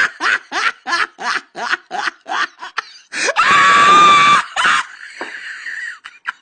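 A person laughing hard in rapid bursts, about four to five a second, breaking into a loud, long, high-pitched squeal of laughter about three seconds in, then trailing off into quieter, breathy laughter.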